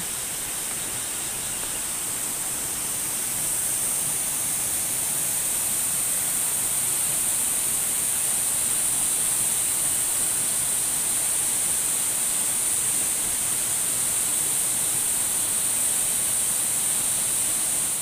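Steady rushing of a waterfall pouring into a rocky pool, with an even high hiss over it. It grows a little louder about three seconds in.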